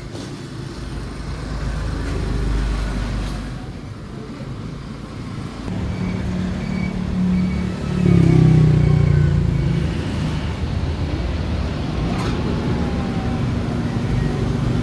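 Kawasaki Barako motorcycle engine running, with a louder surge about eight seconds in as it is revved, then settling back.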